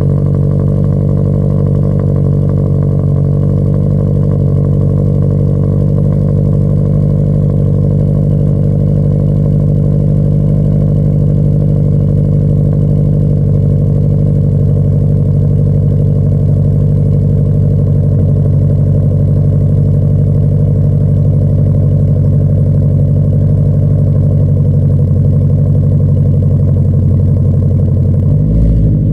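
Subaru BRZ's flat-four engine idling steadily just after a cold start, loud at the tailpipes through a full 2.5-inch aftermarket exhaust: headers, downpipe, catless test pipe and cat-back.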